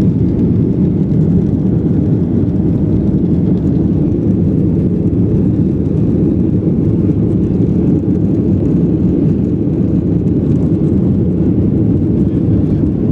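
Cabin noise of a Boeing 737 climbing after takeoff: a steady low rumble of its jet engines and rushing air, heard from inside the cabin.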